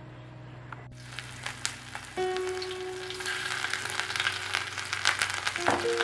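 Ginger frying in hot oil in a wok, sizzling with many small crackles, starting suddenly about a second in and growing louder toward the end.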